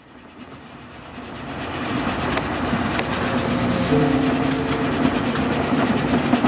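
Noise of a moving train swelling up over a few seconds, with a few sharp clicks. Music notes come in over it from about four seconds in.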